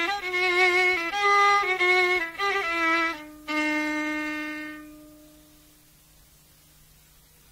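Solo violin (kamanja) improvising an istikhbar in the Tunisian mode tab' al-Husayn: a phrase of short stepwise notes, then about three seconds in a long low held note that fades away, leaving a pause of a couple of seconds.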